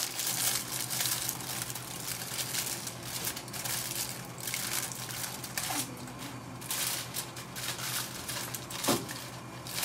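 Aluminium foil being crumpled and pressed by hand into a small improvised mold, crinkling irregularly throughout, over a steady low hum.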